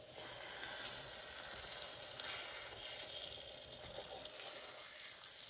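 Egg mixture and biscuits sizzling in a frying pan while the pieces are turned with a slotted spatula. The sizzle grows louder just after the start, with a few faint ticks.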